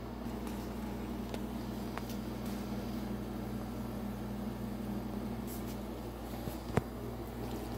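Steady low electrical hum in a kitchen, with a few faint ticks and one sharp knock near the end.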